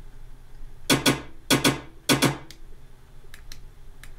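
Six short, sharp bangs with ringing tails, in three quick pairs between about one and two and a half seconds in: the footage's own audio sounding as the clip is played or skimmed in the editing timeline.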